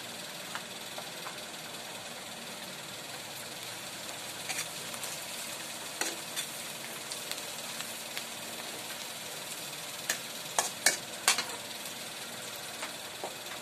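Dried shrimp and onion sizzling in oil in a large metal wok, stirred with a metal ladle that scrapes and clinks against the pan. The clinks come now and then, with a cluster of sharper knocks about ten to eleven seconds in.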